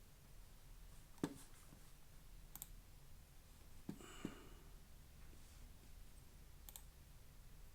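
A few faint, sharp clicks and taps from handling a Paclock UCS padlock core and metal lock tools, the sharpest about a second in and a pair near the middle.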